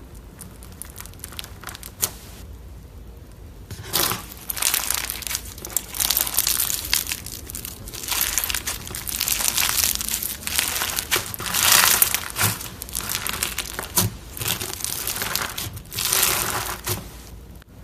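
Crunchy slime being squeezed and pressed by hand, giving off dense crackling and crunching in repeated bursts after a quieter start with a few isolated clicks.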